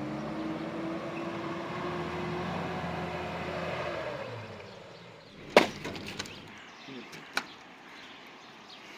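A motor running at a steady, slightly rising pitch that dies away about four to five seconds in, followed by a sharp crack and a few lighter knocks or snaps.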